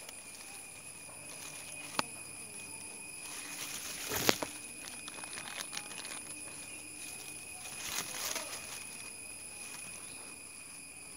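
Coconut palm fronds rustling and a few handling knocks, the loudest a sharp click about two seconds in and a rustling knock around four seconds, over a faint steady high-pitched drone.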